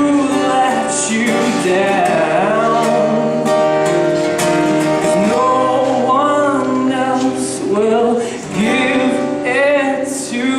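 Live band music: sung vocals over guitar, with long held notes that slide between pitches.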